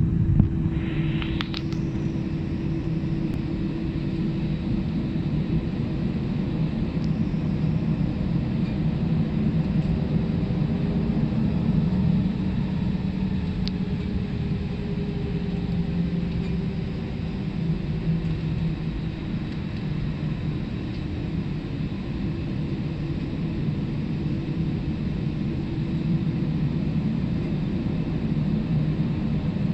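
Steady cabin rumble of a British Airways Airbus A318 with CFM56-5 jet engines, heard inside the cabin as the jet taxis, with low steady engine tones under it. A brief rising whine sounds about a second or two in.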